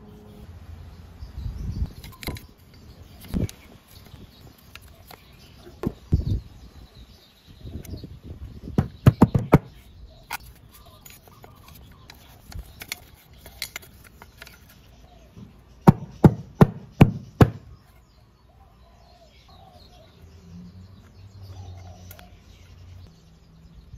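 Clicks and knocks from handling a Honda PCX 150's cast-aluminium CVT cover on a towel, while a small brush scrubs inside it. A quick cluster of knocks comes about nine seconds in, and a run of five loud, evenly spaced taps comes about two-thirds of the way through.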